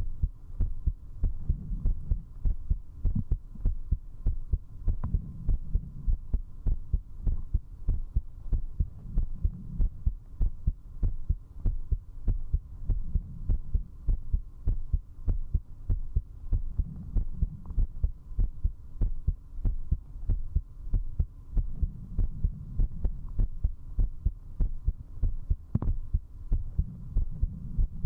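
A fast, strong human heartbeat heard at zero distance through a 3Dio binaural microphone: an even run of low thumps, the heart rate raised by drinking alcohol. A faint steady hum lies under it.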